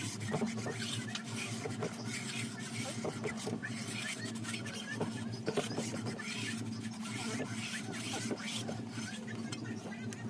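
Irregular small scrapes, rubs and clicks of hand work over a steady low hum.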